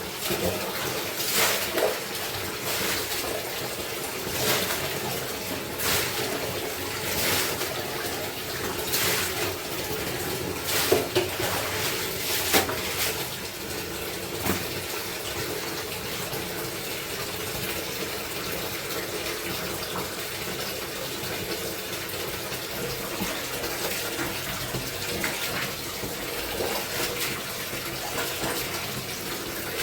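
Water running and splashing as clothes are washed by hand, with sharp splashes or slaps about every second and a half through the first half, then a steadier flow of water.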